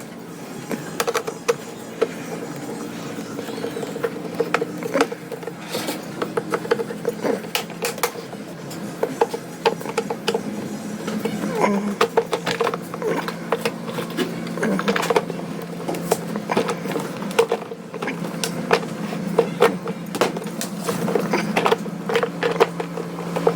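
Irregular clicks, taps and knocks of hand work on a rice cooker's parts over a steady low hum.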